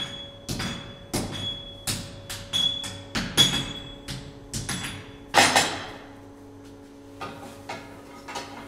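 Hand hammer striking red-hot steel on an anvil, about two blows a second, each with a short metallic ring. The heaviest, longest-ringing blow comes about five and a half seconds in, and the hammering stops soon after, leaving a steady low hum.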